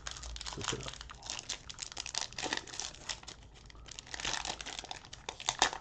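The cellophane wrapper of a Panini Prizm basketball cello pack crinkling and crackling as it is torn open by hand. The crackles come in a dense run, with louder bursts about four seconds in and again near the end.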